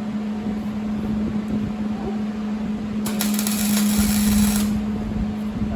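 Welding arc crackling for about a second and a half near the middle: a single tack weld on a steel patch over a rusted-out cart leg. A steady low hum runs underneath.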